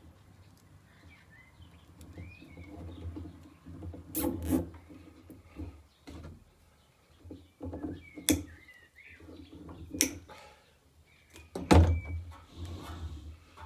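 A handful of separate sharp knocks and clunks, the loudest near the end, from parts and tools being handled during work on a caravan roof's satellite dish mount. Faint bird chirps sound in the background.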